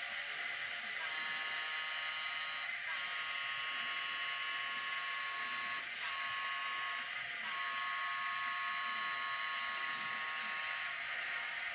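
N scale locomotive's DCC sound decoder sounding its horn through a tiny speaker: a chord of steady tones held in several long blasts with three short breaks, over a steady hiss.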